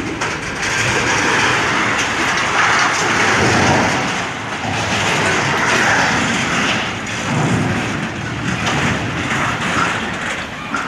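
Steady, loud rushing of wind and rain on the microphone, swelling and easing slowly.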